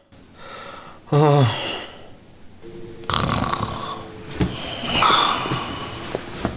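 A man snoring: a loud falling, wavering note about a second in, then from about three seconds in a long noisy snore carrying two steady tones.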